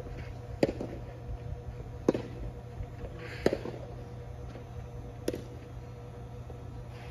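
Tennis ball being hit and bouncing in a rally: four sharp pops, roughly one every one and a half seconds, over a steady low hum.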